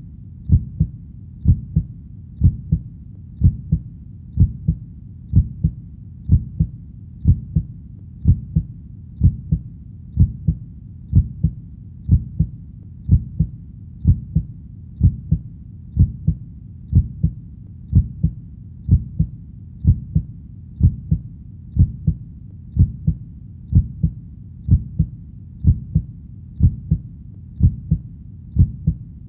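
Heartbeat: a steady double thump, a louder beat followed closely by a softer one, repeating about once a second over a low rumble.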